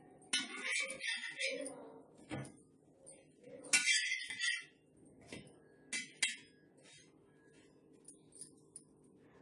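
Steel spatula scraping and clinking on a flat iron griddle pan (tawa) as slices of bread toast dry and are turned: two longer scrapes, the first right at the start and the second about four seconds in, with sharp clicks between, over a faint steady hum.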